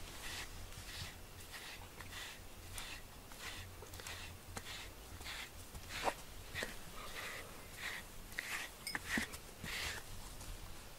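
A pet brush drawn through a cat's fur in repeated short strokes, roughly two a second, with a few sharper clicks about midway.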